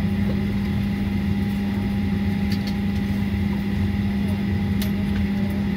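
Steady low drone inside the cabin of a Boeing 737 rolling slowly up to the gate: jet engines at idle and the cabin air running, with a strong constant hum and a few fainter steady higher tones.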